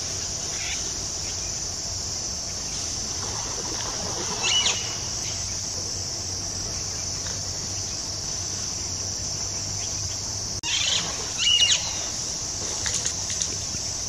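Steady high-pitched drone of forest insects, with a few short, louder sounds about four and a half seconds in and again around eleven seconds in.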